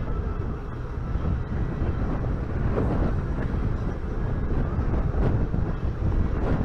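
Steady low rumble aboard a cruise boat just getting under way, its engine noise mixed with wind buffeting the microphone.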